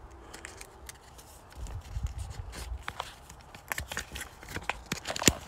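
Cardboard toy boxes and plastic bags being handled: rustling and crinkling with many small clicks, and one sharper snap near the end.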